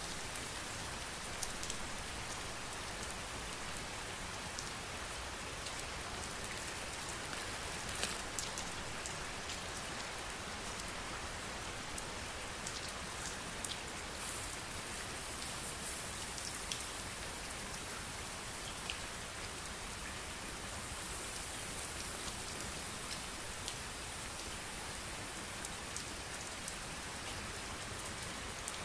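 A steady, rain-like hiss and patter made on a crumpled mound of clear plastic cling wrap, with scattered sharper ticks through it.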